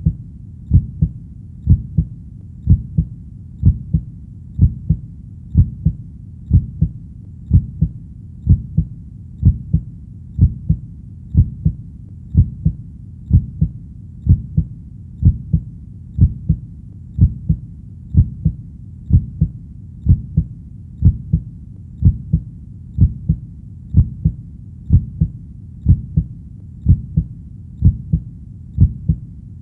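Heartbeat sound: a steady, slow lub-dub, each beat a pair of low thumps, repeating about once a second.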